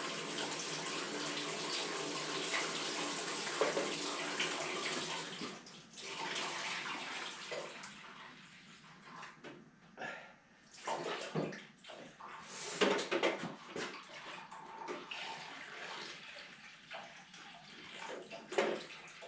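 Water being poured from a container through a funnel into a compact tractor's engine cooling system to flush out the old coolant. It runs as a steady pour for about the first five seconds, then breaks into fainter, uneven trickles and splashes.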